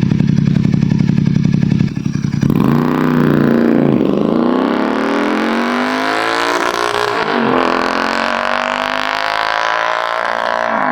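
Royal Enfield Continental GT 650's parallel-twin engine through a loud Red Rooster aftermarket exhaust, held at a steady note for about two seconds, then accelerating hard: the pitch climbs repeatedly, with brief dips as it shifts up through the gears.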